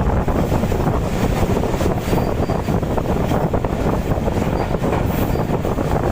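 Steady rush of a moving passenger train running on the rails, with heavy wind buffeting the microphone.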